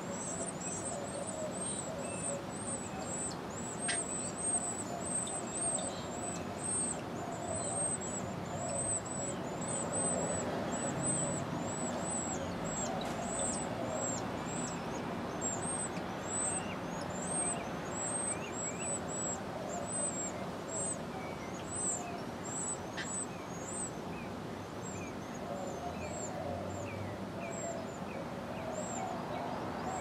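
Carolina wren nestlings begging with thin, very high chirps, about two a second, thinning out near the end, over a steady low background rumble.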